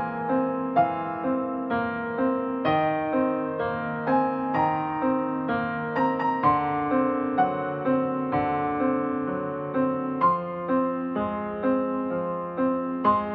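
Background piano music: single notes struck at an even, unhurried pace over held lower notes.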